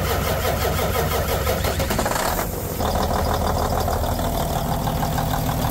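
Engine running with a rapid, even firing rhythm at a steady level, with a short dip in its upper sound about two and a half seconds in.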